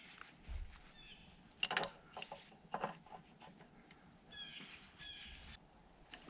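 A few light knocks as the excavator's steel bucket pin is handled. A bird chirps a quick series of short calls about four and a half seconds in.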